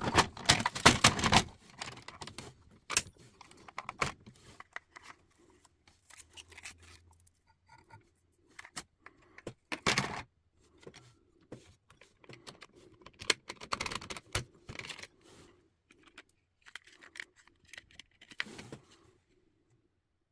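Metal parts of an old typewriter clicking and rattling as it is taken apart, in scattered clicks and short bursts of jangling. The loudest bursts come at the start and about ten seconds in, and the sound stops about a second before the end.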